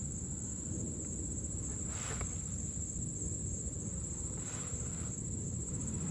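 A continuous high-pitched pulsing trill over a low background hum, with faint brief rustles about two seconds in and again near five seconds.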